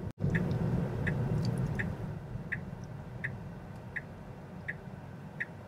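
Tesla Model 3 turn-signal indicator ticking in the cabin: a light, even click about every 0.7 seconds, eight in all, over a low steady cabin hum.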